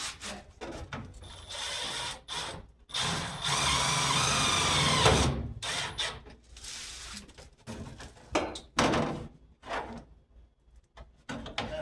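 Power drill driving a self-tapping screw through a thin plastic door panel: the motor runs for about two seconds and winds down as it stops, with clicks and knocks of handling the panel and tool before and after.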